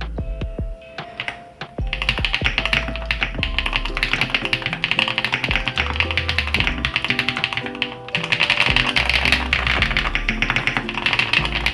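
Fast typing on a Neo65 mechanical keyboard with Everglide Aqua King V3 linear switches: a few separate key presses, then a dense, rapid stream of keystroke clacks from about two seconds in, over background music.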